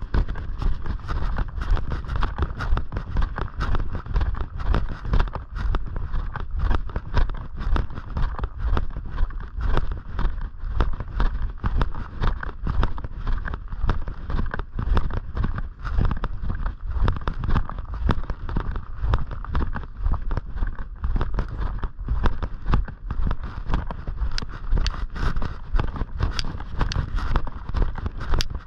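Footsteps on a trail of snow and pavement, a steady walking rhythm of short crunching knocks.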